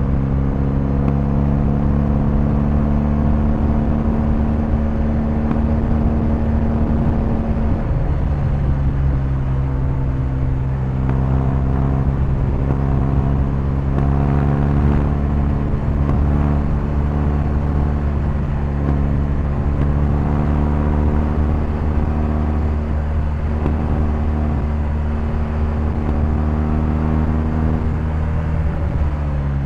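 BMW R1250GS's 1254 cc boxer-twin engine pulling at a steady cruising speed, heard from on the bike. Its pitch holds mostly even, shifting a little a few times, with a constant low rumble under it.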